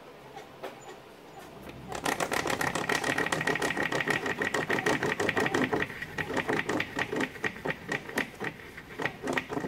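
Glass lap wheel spinning a plywood platter, giving a rapid rhythmic clatter of clicks with a steady high whine that starts about two seconds in. After about six seconds the clicks thin out and space apart as the wheel winds down.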